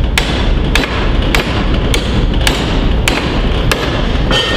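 Hand hammer striking a bent steel mower-deck bar clamped in a bench vise, straightening it: a steady run of sharp metal-on-metal blows, a little under two a second, over a low steady rumble.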